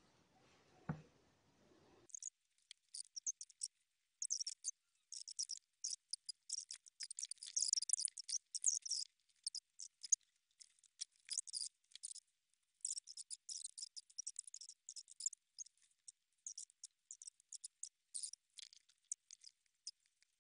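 A soft knock about a second in, then thin, high-pitched crackling in irregular spurts from about two seconds in: tissue paper rustling as it is pushed and worked inside a small glass jar.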